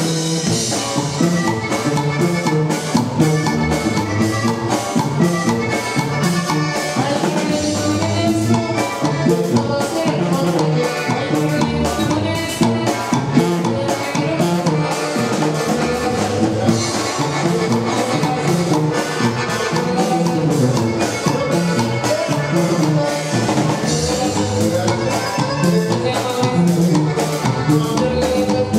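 Live band playing an upbeat Latin tune: a sousaphone bass line over a drum kit's steady beat, with electric guitar.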